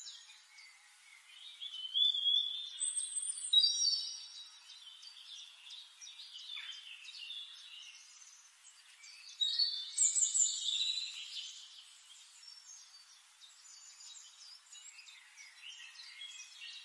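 Songbirds chirping and singing: a mix of high whistles, short gliding notes and trills, loudest about two to four seconds in and again around ten seconds.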